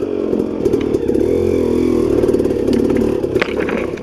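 KTM EXC 250 two-stroke dirt bike engine running, its pitch rising and falling as the throttle is worked. A few sharp clattering knocks sound near the end.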